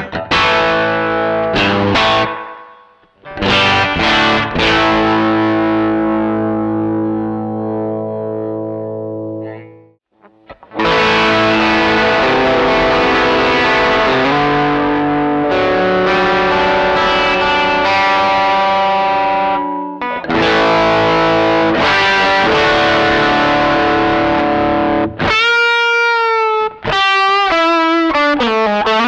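Distorted electric guitar played through a budget pedalboard: strummed chords left to ring, with two short breaks, then wavering bent notes near the end.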